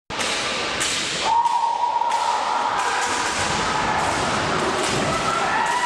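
Kendo competitors' kiai: a high, drawn-out shout begins about a second in and is held for a couple of seconds, and another rises near the end, over steady hall noise. A few sharp knocks come in the first two seconds.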